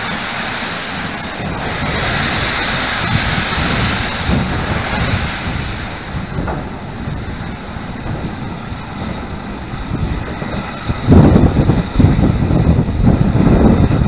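GWR King class four-cylinder 4-6-0 steam locomotive 6023 'King Edward II' under way with its cylinder drain cocks open, steam hissing loudly for about the first six seconds before the hiss dies down. From about eleven seconds in, wind buffets the microphone in loud gusts.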